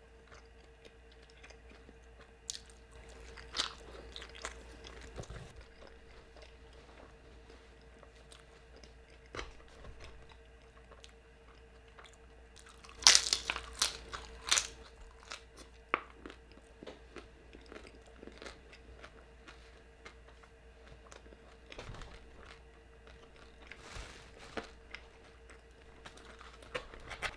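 Close-miked chewing and biting of food: soft, scattered mouth clicks and crunches, with a few louder bites a little past the middle.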